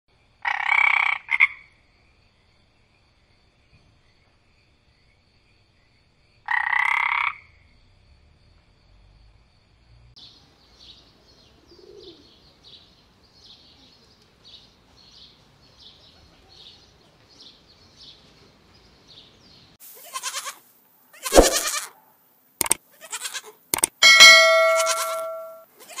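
A green water frog croaks twice, each call lasting about a second, near the start and again about six seconds later. Faint high chirps then repeat steadily for about ten seconds, followed by a cluster of loud sudden noises and a bleat near the end.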